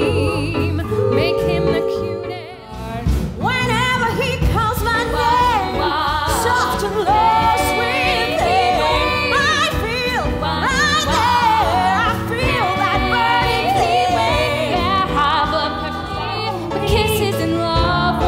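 Female vocal group singing in close harmony with vibrato over a pop backing track. A brief drop about two and a half seconds in is followed by a different, busier song.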